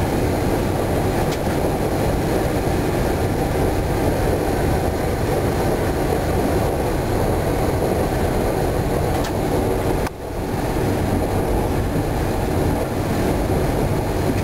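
Bombardier B 82500 AGC multiple unit running at speed, heard from inside its driver's cab: a steady rumble of wheels and running gear on the track, with a brief drop in level about ten seconds in.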